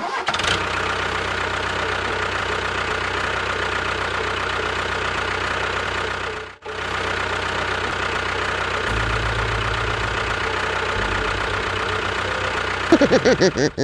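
Engine running steadily, breaking off for a moment about halfway through and then running on.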